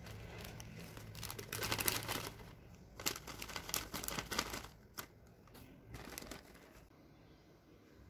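Plastic wrapping of a pack of cotton pads crinkling in irregular bursts as the pads are pushed out into a glass jar, the bursts thinning out toward the end.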